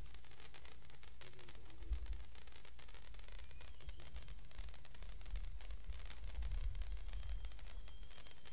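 A handheld Morning Glory stick firework (a Bengal-style sparkler) burning with a steady hiss and fine crackling as it sprays sparks, over a low rumble.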